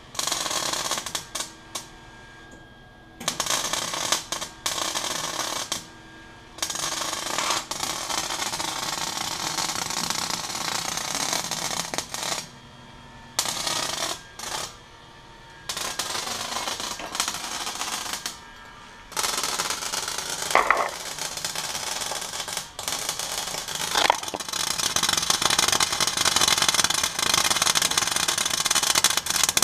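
Wire-feed welder crackling and sputtering as it welds steel exhaust pipe, in runs of several seconds with short pauses between beads, the stretches getting longer near the end. The welder is run without shielding gas.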